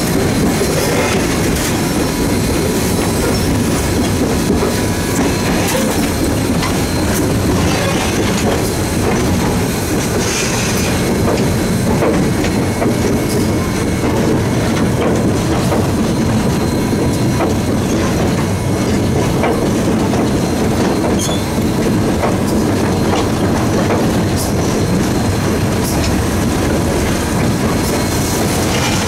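Southern Railway 630, a 2-8-0 steam locomotive, running along the line, heard from inside its cab: a steady, loud clatter and rumble of the moving engine on the rails.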